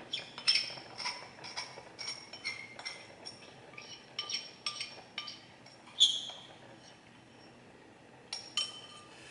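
Small ceramic bowl clinking as it is scraped and tapped out over a saucepan, with a run of short, ringing clinks. A louder clink comes about six seconds in, and a few more near the end.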